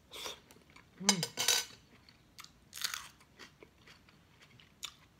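Close-miked eating sounds: a person chewing a mouthful, with a few crunchy bites about a second in and again near three seconds, and small wet mouth clicks between. A brief vocal sound comes just before the first crunches.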